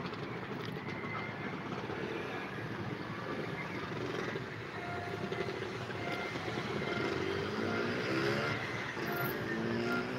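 Road traffic below: car horns tooting again and again in short blasts over a steady traffic din, with an engine accelerating, rising in pitch, in the second half.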